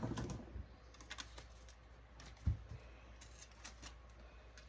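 Faint scattered clicks and taps of small parts and a hand tool being handled as a part is taken off an electronics circuit board, with one low knock about two and a half seconds in.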